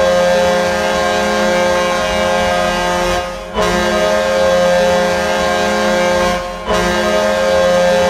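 Florida Panthers arena goal horn sounding in long steady blasts of about three seconds each, broken twice by short gaps.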